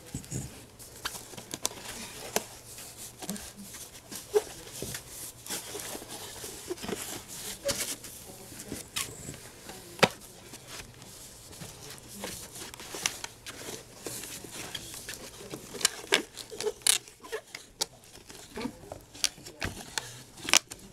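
Handling noise close to the microphone: irregular clicks, taps and rustling of cloth as a bisque doll and its clothes are moved about, with a few sharper knocks about halfway and in the last few seconds.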